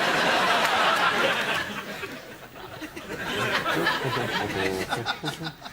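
Studio audience laughing, then a man's voice making mimed sound effects.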